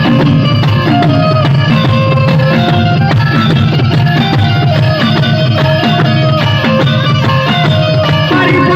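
Instrumental folk music: a melody of held notes that step from pitch to pitch, over steady drum beats.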